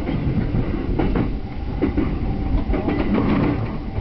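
Yamanote Line electric commuter train (E231-500 series) running, heard from inside the front car: a steady low rumble with irregular sharp clicks as the wheels pass over rail joints and points.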